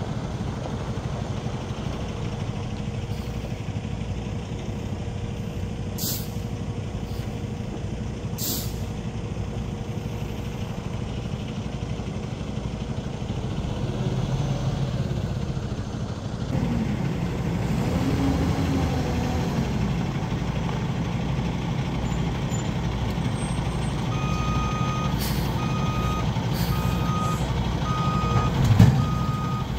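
Semi-truck diesel engine running steadily, with two short hisses early on and a brief rise and fall in engine pitch midway. About three-quarters of the way through a reversing alarm starts beeping at a steady pace, and there is a loud knock near the end.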